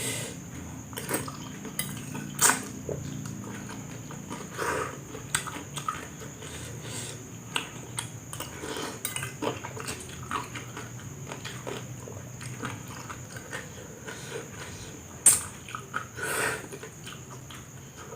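Cutlery clinking and scraping against a dish while eating noodles: scattered light clicks, with a sharper knock about two and a half seconds in and another about fifteen seconds in.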